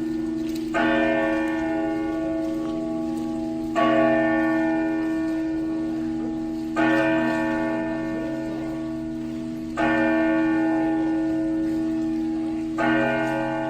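A church bell tolling slowly. It is struck five times at an even pace of about one stroke every three seconds, and each stroke rings on and blends into the next.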